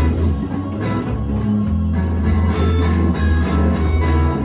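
Rock music played live on electric guitar, over a heavy, loud bass line with drum and cymbal hits.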